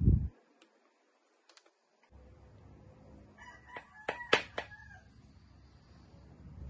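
A rooster crowing, one broken call a little over three seconds in, over a low steady hum that drops out for about two seconds after a short thump at the start.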